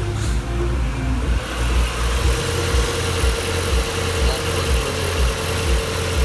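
Car engine idling, with uneven deep thumps and a steady whine that sets in about a second and a half in.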